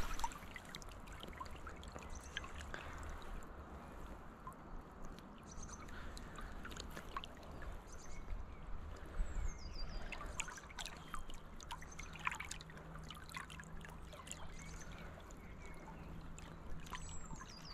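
Faint river water rippling and trickling close by, with many small irregular splashes and drips.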